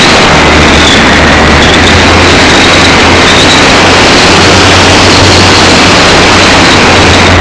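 The electric motor and propeller of an RC glider running steadily, heard from a camera mounted on the plane, buried in a loud, near-clipping rush of wind on the microphone. A faint high whine sits above a low hum.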